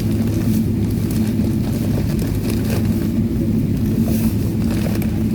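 Steady cabin noise inside a Boeing 777-300ER taxiing after landing: a low rumble and hum with a few faint rattles.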